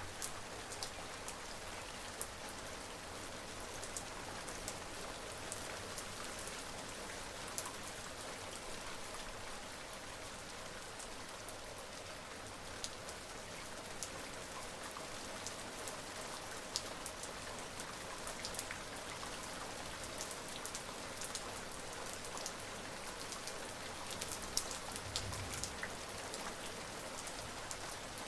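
Steady rain falling, an even hiss of rain on a surface with scattered sharp ticks of single drops striking close by.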